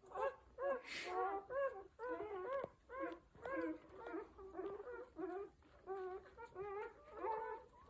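Newborn F1b miniature goldendoodle puppies squeaking and whimpering as they nurse: a continuous run of short, high rising-and-falling cries, several a second, from more than one puppy at once.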